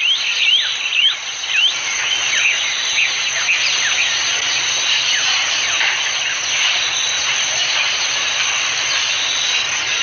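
Dense chorus of birds and insects: many short, falling chirps over a steady high hiss.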